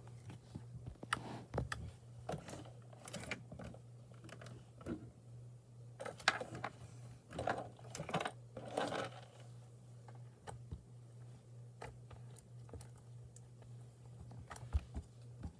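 Hands kneading and squishing slime, giving irregular small clicks and wet pops, with a few longer squelches in the middle.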